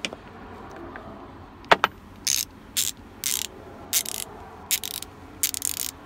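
Craftsman 120-tooth ratchet being swung back and forth: a single sharp click, then about seven short bursts of fast, fine clicking from its pawl and teeth. It has a solid sound.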